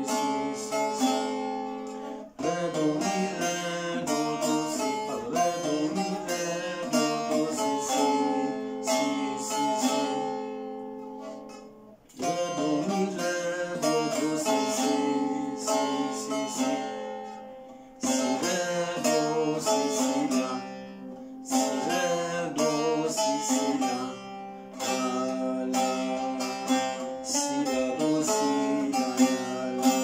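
Short-neck bağlama (kısa sap), tuned to C, played solo: a plucked Turkish folk-song melody in quick runs of notes. The phrases die away briefly about 2, 12, 18 and 24 seconds in before the playing picks up again.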